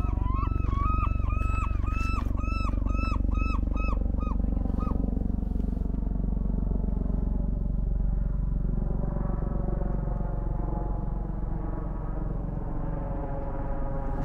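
A gull calls in a rapid series of repeated notes for the first five seconds or so, over the steady low rumble of a helicopter overhead. From about nine seconds in, the helicopter's engine tones come through more clearly.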